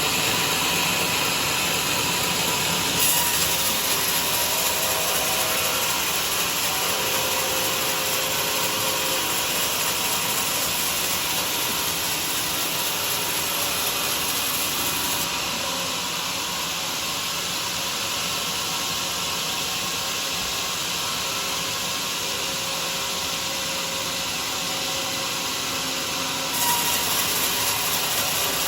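Homemade sawmill running and sawing through a durian log: a steady, high-pitched rasping noise that grows louder about three seconds in, eases a little about halfway through and picks up again near the end.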